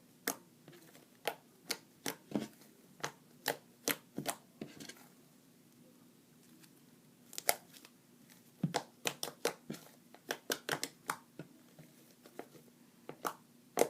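Fluffy white slime made from PVA glue, shaving foam and activator being squeezed and stretched by hand for ASMR, giving sticky clicking pops at an irregular pace, with a pause of a couple of seconds midway.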